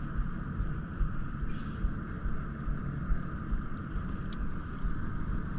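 Small outboard motor on a fishing boat running steadily at trolling speed, a low even hum, with a few faint ticks.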